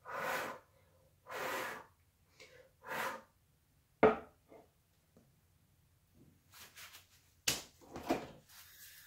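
Three short breathy puffs of air in the first few seconds, then a few sharp clicks and knocks of something being handled, the loudest about four seconds in.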